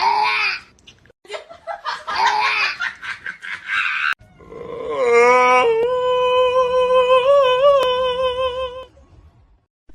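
Laughter in short bursts, then a long, held high-pitched call with a slight wobble in pitch lasting about four seconds.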